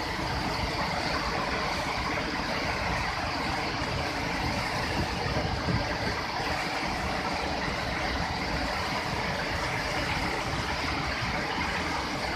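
Flooded waterfall: a steady, loud rush of heavy muddy water pouring over rock ledges into churning rapids, the water running high and under great pressure.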